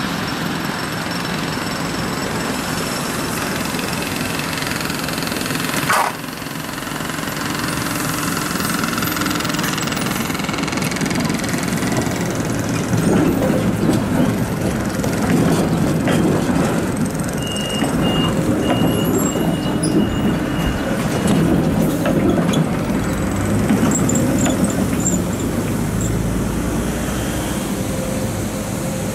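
Konstal trams rolling through a turning loop on wet track, steel wheels rumbling over the rails as one passes close by. A thin, high wheel squeal comes and goes for a few seconds midway, as the wheels grind round the curve.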